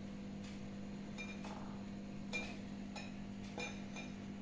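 A spoon clinking against glass dessert cups and a glass bowl while crushed biscuit crumbs are spooned in: several light clinks, the two loudest a little after two seconds and about three and a half seconds in, over a steady low hum.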